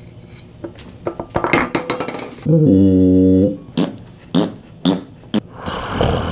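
Clicks, knocks and rubbing of a clip-on lavalier microphone being handled, unclipped and set down on a table. A steady low voiced sound lasting about a second comes in the middle, between the two bursts of knocks.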